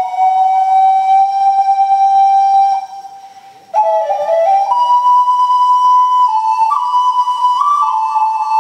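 Clay ocarina playing a slow melody: a long held note, a break for breath about three seconds in, then a new phrase that opens with quick ornamental notes and moves into held notes stepping up and down.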